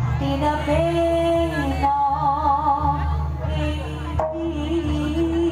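Jaranan folk music: a melody of long held notes with a wavering vibrato, stepping to a new pitch about every second, over a steady low accompaniment.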